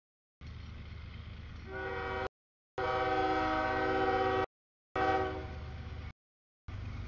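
CSX freight train's lead diesel locomotive blowing its multi-chime air horn, one long chord starting about two seconds in and fading out around five seconds in, over the low rumble of the locomotives passing. The audio drops out into silence for short moments several times.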